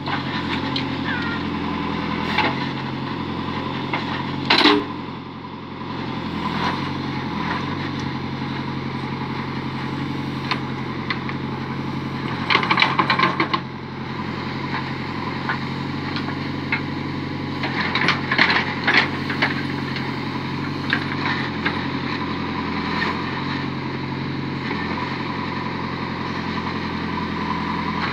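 Backhoe loader's diesel engine running steadily, its pitch shifting now and then as the digger works. Over it, the steel bucket scrapes and clatters through soil and broken concrete, with several sharp clatters.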